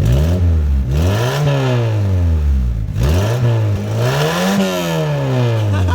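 Volkswagen Golf MK2 GTI's four-cylinder engine revved twice in neutral, each rev climbing and falling back over about three seconds, through its old muffler, which the owner says no longer works.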